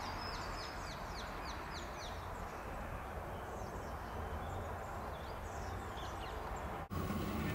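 Birds singing: a run of quick, high, downward-sweeping notes right at the start, then scattered chirps, over a steady low rumble and hum of background noise. Near the end the sound breaks off briefly and the background comes back louder.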